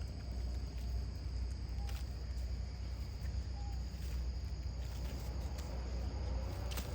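Steady, high-pitched trilling of insects such as crickets over a low rumble, with two faint short chirps.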